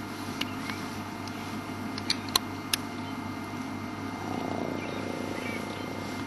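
An African elephant feeding at a bush close by: a few sharp snaps of twigs and branches breaking, most of them two to three seconds in, over a steady low hum.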